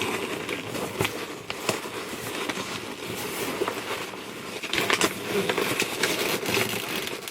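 Foam packing peanuts being scooped and rustled out of a cardboard box: a dense, irregular crackle of small clicks and rubbing, growing busier about two thirds of the way through.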